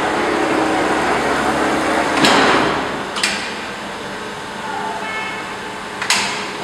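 Computer beam saw running, a steady machine noise with a low hum in the first half. It gives sharp clacks from its pneumatic clamps and grippers: a loud one with a short hiss a little over two seconds in, another about a second later, and one near the end.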